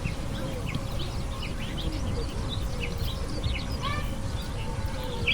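Small birds chirping: many short, quick overlapping chirps over a steady low background rumble.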